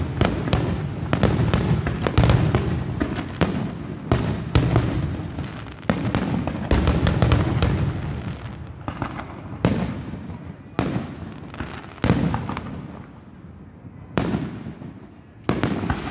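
Aerial fireworks shells bursting: a dense run of rapid bangs with a low rumbling echo for the first half, thinning to single booms every second or two.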